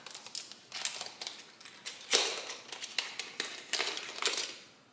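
Makeup pencils and packaging being handled: a series of light clicks and taps, with two short rustles about two seconds in and again near the end.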